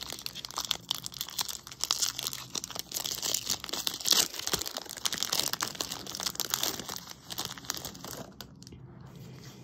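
Foil Pokémon booster pack wrapper crinkling and rustling as it is handled and the cards are worked out of it. The crinkling is irregular and dies down about eight seconds in.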